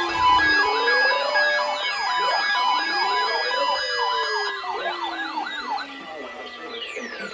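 Several emergency-vehicle sirens sound at once: a fast up-and-down yelp, slower wails and a pulsing on-off tone. About six seconds in most of them stop, and one siren is left winding down in a long falling tone.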